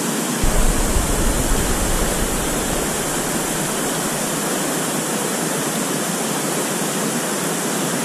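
Water rushing steadily over a smooth rock face at a natural waterslide waterfall.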